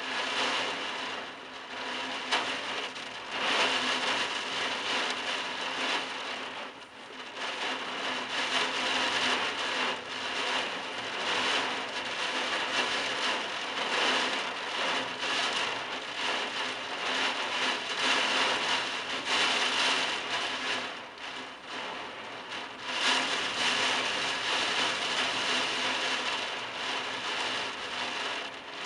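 Torrential wind-driven rain pelting roof tiles: a dense, steady hiss that surges and eases every few seconds with the gusts.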